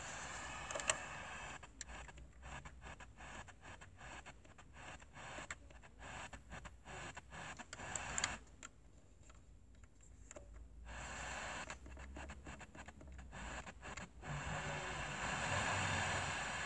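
Ford 6000 CD car radio seeking across the FM band between stations: faint static hiss, cut up by many brief mutings as the tuner jumps. Near the end it settles into a steadier, louder hiss.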